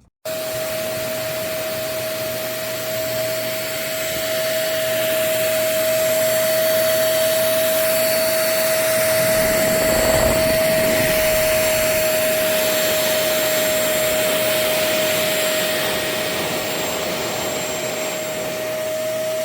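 Intercleaner 400W corded stick vacuum switched on just after the start, its motor then running steadily with a strong high whine over a rushing hiss, a little louder through the middle stretch.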